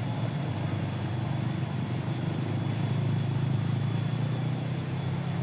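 Small engine running steadily with an even low hum.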